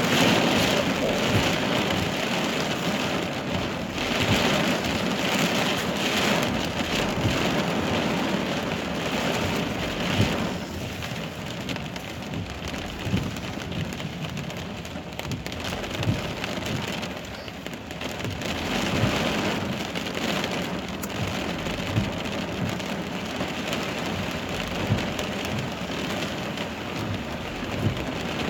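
Heavy rain falling steadily during a thunderstorm, hardest for the first ten seconds or so and then easing a little, with a few short sharp taps of single drops.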